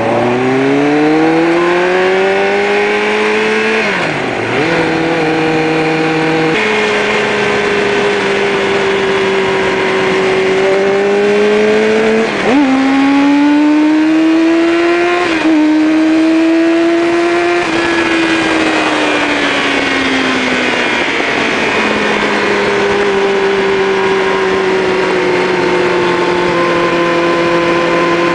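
Motorcycle engine pulling through the gears: the pitch climbs and drops sharply at upshifts about four, twelve and fifteen seconds in. It then falls as the throttle eases and holds a steady cruise for the last few seconds, with wind rush throughout.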